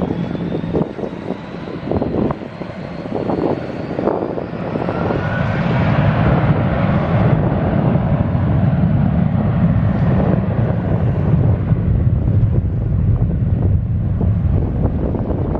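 Jet airliner engines: a thin whine rises in pitch over the first few seconds, then a low, steady rumble builds from about six seconds in and holds. Wind buffets the microphone in the first few seconds.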